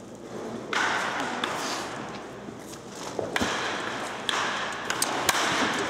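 Batting practice against a pitching machine: a bat striking pitched baseballs with sharp cracks, two or three times, over a hissing background noise that rises and falls.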